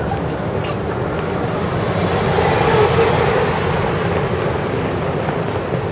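Road traffic noise, with a pickup truck driving close past; its engine and tyre noise swells about halfway through and then eases.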